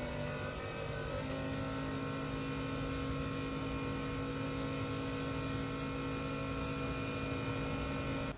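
Two electric fuel pumps running together with a steady electric whine: the in-tank pump feeding the surge tank and a Bosch 044 external pump pushing fuel to the engine. The pitch shifts slightly about a second in.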